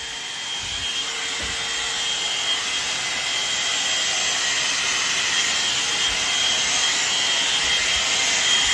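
Alan Truman hair dryer running with a steady rush of blown air and a high whine from its motor, growing a little louder over the first few seconds.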